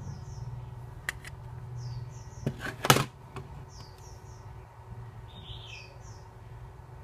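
Small birds chirping in short groups of two or three high, falling notes, repeating every second or two. Two sharp clicks come about a second in, and a louder cluster of knocks or clatter about three seconds in, over a steady low hum.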